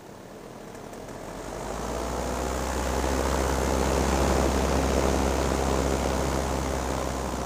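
Paramotor engine and propeller droning steadily. The sound swells over the first few seconds and then eases slowly.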